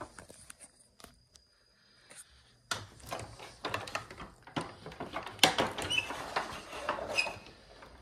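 Hoover Encore upright vacuum being handled with its motor off: hard plastic knocks and rattles as the hose and wand are taken off and the machine is tipped back. The clatter begins about three seconds in, with a few short squeaks near the end.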